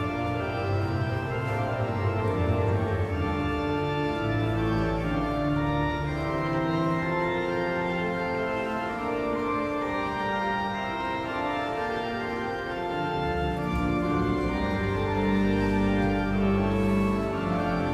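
Organ playing slow, sustained chords over held deep bass notes.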